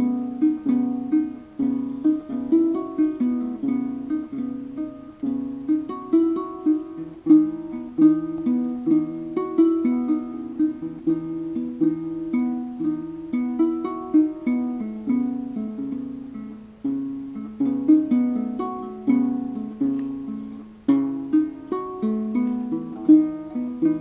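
Ngoni, a West African harp-lute, plucked by hand in a repeating melodic pattern of quick notes, each struck sharply and left to ring out.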